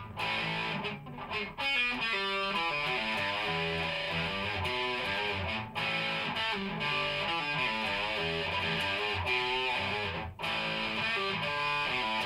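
Electric guitar played through an amplifier: a riff of picked notes that repeats, broken by short pauses about six and ten seconds in.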